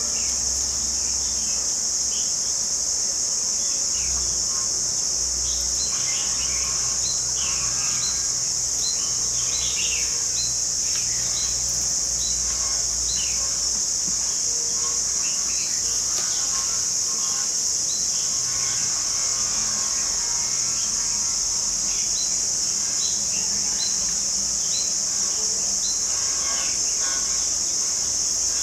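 Steady, high insect drone, the loudest sound, with short downward bird chirps repeating about once a second over it.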